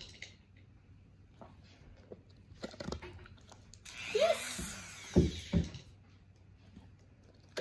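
A Dremel rotary tool briefly whirs for about half a second, roughly halfway through, while the dog's paw is held, a short burst to accustom her to its sound. Scattered soft clicks and taps around it, and two sharp knocks just after the whir, the loudest sounds here.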